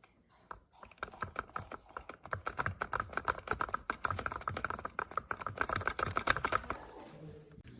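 Rapid, irregular clicking and tapping, many clicks a second, which thins out shortly before the end.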